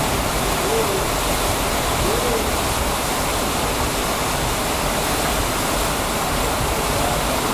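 Mountain creek whitewater rushing and pouring through a narrow rock gorge: a steady, unbroken rush of water.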